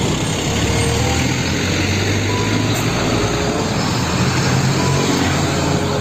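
Heavy diesel trucks driving past close by on a road: a steady low engine rumble under loud tyre and road noise.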